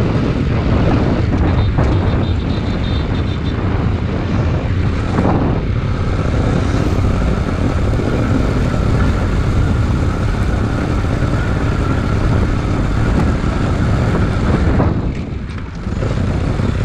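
Bajaj Pulsar NS200 motorcycle ridden at a steady road speed, its single-cylinder engine running under heavy wind rush on the microphone. Near the end the sound dips briefly as the bike slows.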